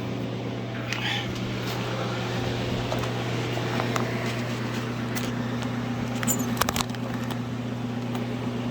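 Steady hum of an electric fan running, with a few light clicks and knocks about six and a half seconds in.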